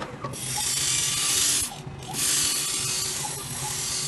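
Phone-screen grinding machine running: a steady motor hum under a loud hiss from the grinding pad working over the iPhone XR's glass screen to grind out a deep scratch. The hiss breaks off briefly about two seconds in, then resumes.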